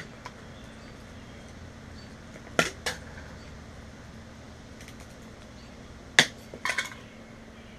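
A few sharp metallic clinks and clanks, some in quick pairs, from metal parts of a dismantled welder being handled, over a faint steady hum.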